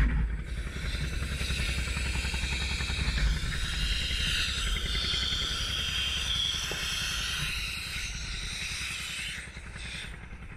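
Steady underwater rush of a diver's air bubbles and breathing gear: a continuous hiss over a low rumble, easing a little near the end.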